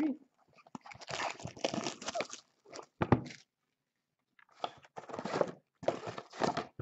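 Plastic shrink wrap being torn and crumpled off a sealed trading card hobby box, in uneven bursts of crinkling. There is one sharp knock about three seconds in, then a short pause before the crinkling resumes.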